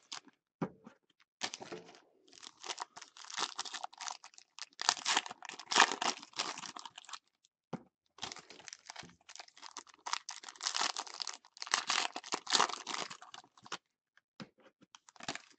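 Clear plastic wrapping being torn and crinkled off a sealed box of trading cards, in two long crackling stretches with a short pause about halfway through.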